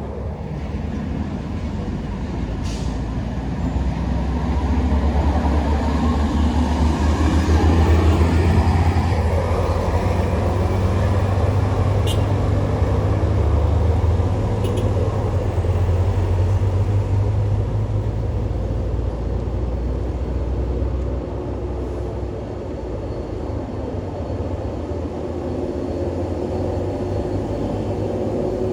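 Heavy diesel vehicle's engine running past with a deep rumble that grows louder a few seconds in and fades again in the last third.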